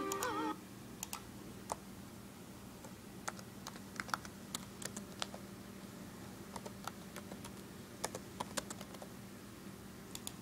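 Laptop keyboard keys being pressed: single sharp clicks at irregular intervals, like slow typing. A snatch of cartoon music from the laptop's speakers cuts off suddenly about half a second in.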